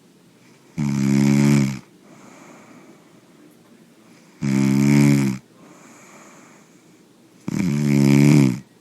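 Snoring: three loud snores, each about a second long and spaced three to four seconds apart, with quiet breathing between them.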